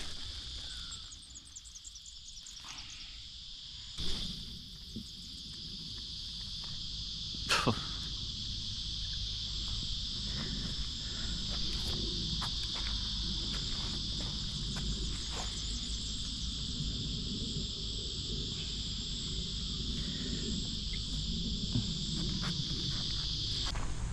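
Steady high-pitched buzzing of insects, cutting off suddenly near the end, with a knock about four seconds in and a single quick swish a few seconds later.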